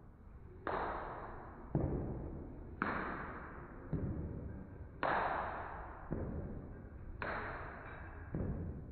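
Background music with a slow, steady beat: sharp hits about once a second, alternating deep and bright, each ringing out.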